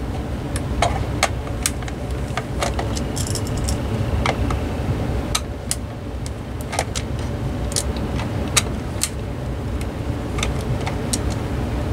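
Screwdriver backing screws out of the plastic base of an AT&T CL83213 cordless phone: scattered small clicks and taps of metal on screws and plastic housing, over a steady low rumble.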